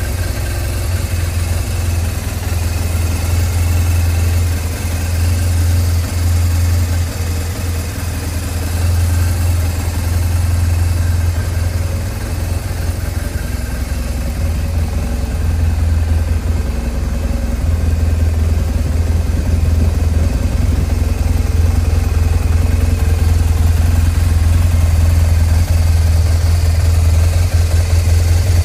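BMW R1200 GS boxer-twin engine idling steadily, a low, even engine note.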